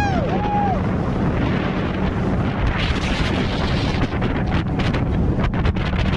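Small tiller outboard motor of about 10 hp running steadily at full speed, pushing a skiff with two aboard, under heavy wind buffeting the microphone.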